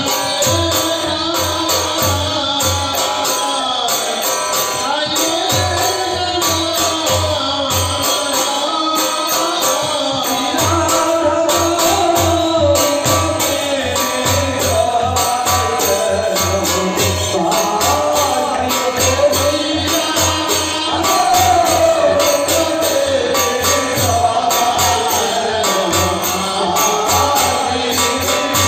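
Sandhya aarti kirtan: voices singing a devotional chant over a steady drum beat and continuous jingling metal percussion.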